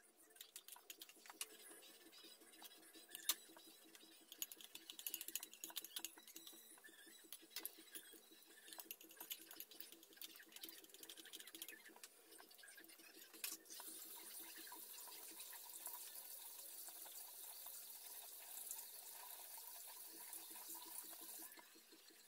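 Squash-and-egg fritter batter frying in hot oil in a wok, with scattered crackles and pops. About two-thirds of the way through, a steady high sizzling hiss sets in, then cuts off shortly before the end.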